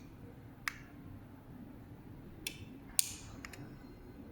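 A handful of short, sharp clicks, the loudest about three seconds in and a quick double click just after, as the replacement garage door remote's button is pressed and the opener responds.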